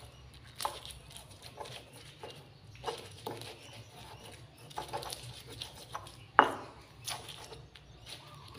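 Stone pestle grinding and crushing red chillies in a stone mortar (cobek and ulekan): irregular scrapes and knocks of stone on stone, the loudest about six seconds in.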